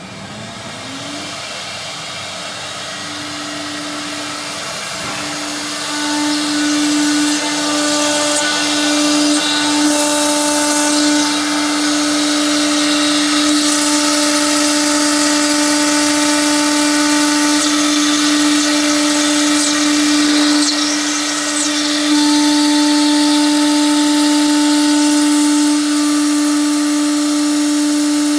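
Stone CNC bridge saw running: the motor winds up in the first second to a steady whine, and from about six seconds in the sound grows louder with a hiss over it, as the blade works the stone countertop.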